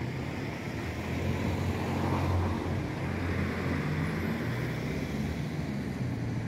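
Steady low outdoor rumble, swelling slightly about two seconds in.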